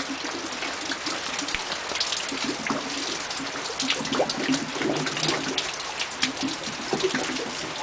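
Water running and gurgling through a small homemade pulser pump's plastic pipework, with a constant patter of drip-like ticks and splashes.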